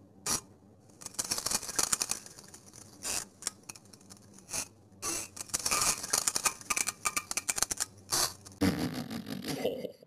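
Wet, sputtering diarrhea fart sounds: irregular crackling bursts over several seconds, with a lower, fuller splutter near the end before stopping abruptly.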